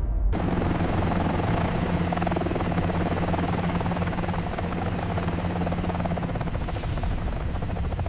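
Helicopter running: a steady dense engine and rotor noise with a rapid flutter and a low hum. It starts abruptly just after the start and cuts off sharply at the end.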